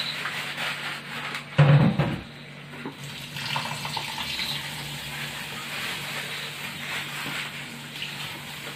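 Tap water running into a steel bowl of basmati rice while the rice is washed and swirled by hand under the stream. A single loud bump comes about one and a half seconds in.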